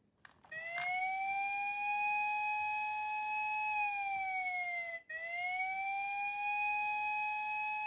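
TOYCO talking police car toy's electronic siren, set off by a click near the start: a wailing tone that glides up, holds, and slides down, then breaks off and starts a second wail about five seconds in.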